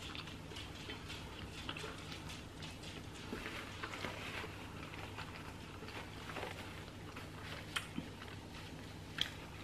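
Close-miked chewing and wet mouth sounds of someone eating a bagel sandwich, a stream of faint small clicks, with a few sharper clicks near the end.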